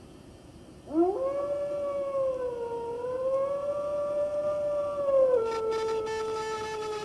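A wolf howl: one long call that swoops up about a second in, holds with a slight waver, then steps down in pitch near the end and carries on.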